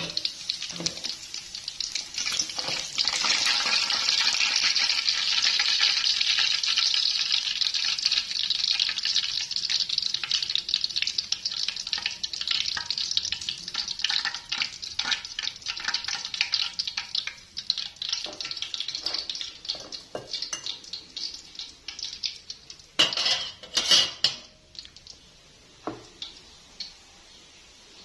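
Pork ribs frying in hot oil in an aluminium pot, sizzling and crackling, with metal tongs scraping and knocking against the pot. The sizzle dies away about two-thirds of the way through, and a few sharp clinks of metal come near the end.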